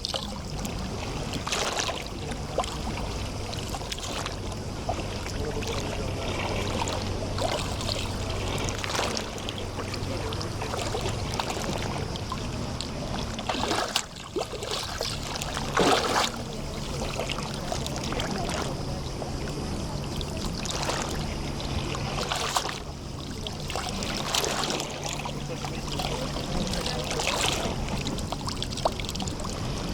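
Small sea waves lapping and splashing against the shore of a bay, one wash every second or two, a couple of them louder about halfway through. Under them runs the low, steady drone of a distant boat motor.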